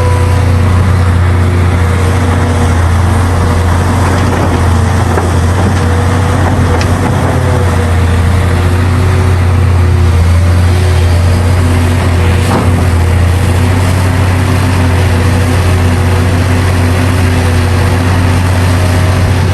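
Hitachi Zaxis 670LC excavator's diesel engine running steadily under load: a deep, constant drone whose pitch wavers slightly, with a couple of faint knocks.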